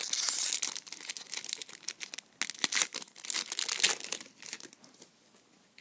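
Foil wrapper of a trading card pack crinkling and tearing as it is opened by hand. A dense run of crinkles comes at first, then scattered bursts, and it goes quiet near the end.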